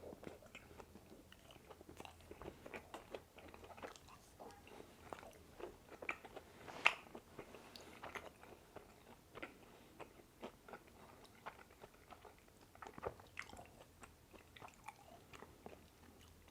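Faint close-miked chewing of a pan-fried pork dumpling: many short, irregular mouth clicks and bites, with one sharper click about seven seconds in.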